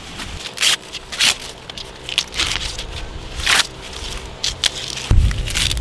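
Fresh green corn husks crackling and tearing as they are stripped from the ears by hand, in a series of short separate rips. Wind rumbles on the microphone near the end.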